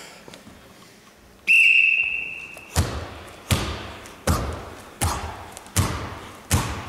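A whistle blows once for about a second. Then come sharp, echoing slaps at an even pace, about one every three quarters of a second, keeping time for a set of push-ups.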